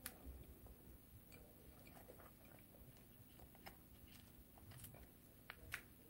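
Near silence: room tone with a few faint, scattered clicks.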